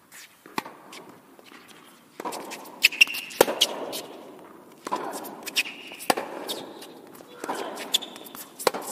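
Tennis rally on an indoor hard court: sharp racket-on-ball strikes and ball bounces about every second and a half, echoing in the hall, with short shoe squeaks in between.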